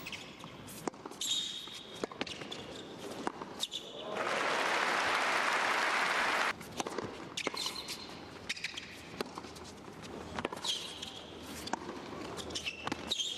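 Tennis play on an indoor hard court: sharp racket strikes and ball bounces with high shoe squeaks. About four seconds in, crowd applause rises for two and a half seconds and cuts off abruptly, then more shots, bounces and squeaks follow.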